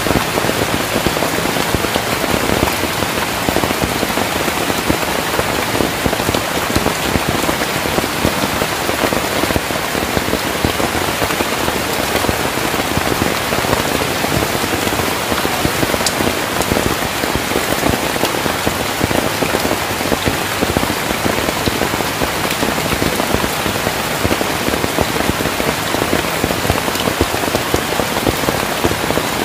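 Heavy rain falling steadily on forest vegetation, an even, unbroken downpour.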